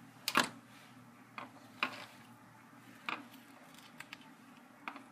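A handful of short, sharp clicks and taps, about six spread unevenly, the first loudest, from a screwdriver and small screws being fitted to fasten the replacement laptop LCD screen into its mounting on the second side.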